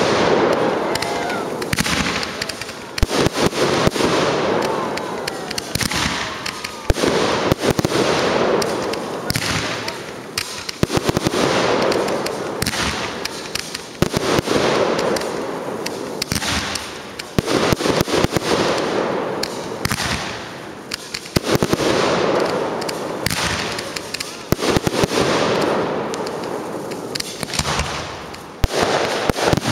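Fireworks display: a rapid string of aerial shell bangs and crackling that swells and fades in waves every two to three seconds, with a few whistling glides about a second in.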